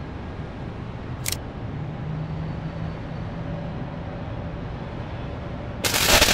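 Small firecracker going off on concrete near the end with a loud, sharp bang about half a second long, after a steady outdoor background hum and a single short click about a second in.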